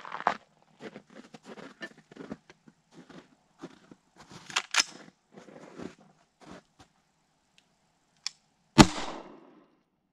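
Small clicks, scrapes and crunches as the can cannon is loaded, then, about nine seconds in, a single loud 5.56 AR-15 shot firing the can cannon and launching a can of turkey gravy, with a short echo trailing off.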